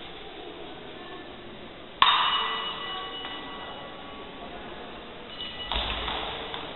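Steel fencing blades striking, a sharp clash about two seconds in that rings and dies away over a second or so. Near the end a second, noisier clash comes with a heavy thud as one fencer lunges.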